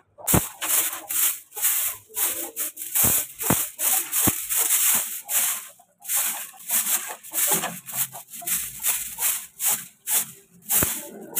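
Long-handled broom sweeping a dusty dirt-and-straw floor: quick runs of scratchy brushing strokes with short pauses, and a few sharp knocks of the broom against the wooden frame.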